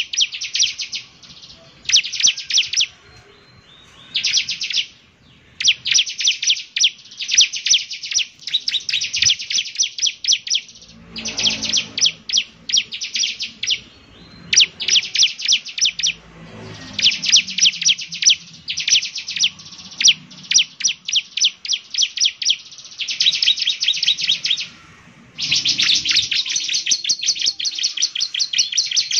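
Bar-winged prinia (ciblek) singing rapid trains of sharp, high chirps, in bursts of a second or two separated by brief pauses.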